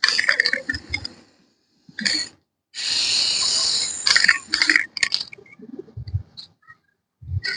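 Aerosol spray-paint can spraying in hisses: a short puff, then one steady spray lasting about a second and a half near the middle, followed by a few shorter puffs. There are clicks and knocks in the first second.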